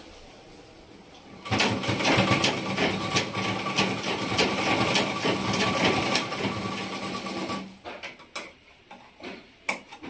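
Black sewing machine driven by an add-on electric motor, running and stitching fabric for about six seconds from a second and a half in: a steady whir with fast needle clatter. It stops abruptly, followed by a few light clicks.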